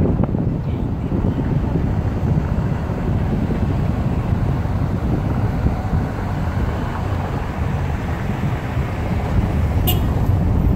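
Steady rumble of a car driving through city streets, with wind rushing over the phone's microphone. A single sharp click near the end.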